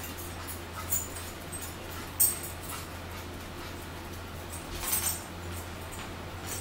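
A small pet dog moving about, its collar tags giving a few light jingling clinks over a steady low hum.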